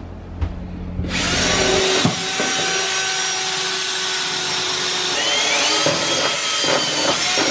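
Cordless drill with a 1/8-inch bit boring mounting holes through a van floor. The motor starts running about a second in and whines steadily, with a brief rise in pitch near the end.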